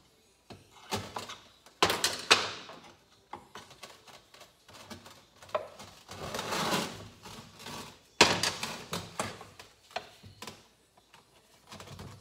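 Hands working a small two-stroke motorcycle engine's metal crankcase halves apart: irregular knocks, clicks and clatter of metal parts and tools. The two loudest knocks come about two and eight seconds in, with a longer scraping rattle midway.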